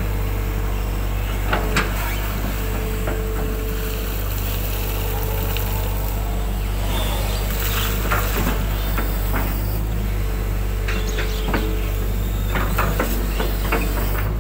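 Hitachi 120 hydraulic excavator's diesel engine running steadily under work, heard from the cab, with a whine that comes and goes as the boom and bucket move. Scattered knocks and scrapes of the steel bucket working wet ditch mud, more of them in the second half.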